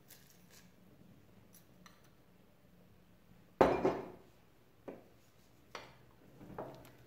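Kitchenware clatter: one loud sharp knock about halfway through, then a few lighter knocks as a wooden spoon stirs broth in an enamel pot.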